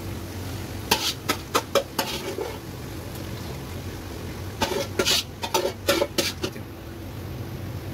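A metal spoon knocking and scraping against a metal karahi as mashed saag is spooned into it. The clinks come in two clusters, one about a second in and one about five seconds in, over a steady low hum.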